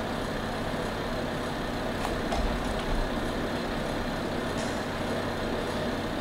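Steady background noise with a few faint clicks in the middle.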